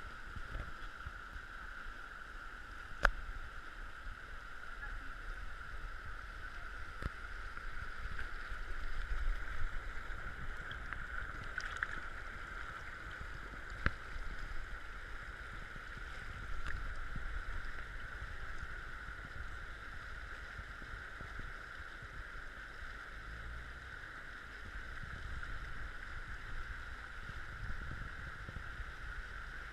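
Fast-flowing river rushing over stones in a steady wash, with wind rumbling on the microphone and a couple of faint knocks.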